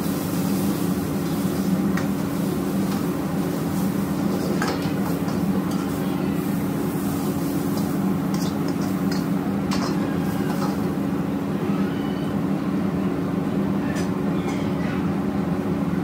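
Steady roar of commercial gas wok burners and the kitchen's extraction hood, with a low hum. Now and then a steel ladle or spatula clinks and scrapes against a wok.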